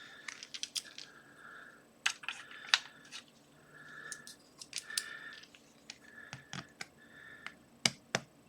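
Pin tumbler lock being relocked: a scatter of sharp metallic clicks and several short, faint scrapes of metal on metal.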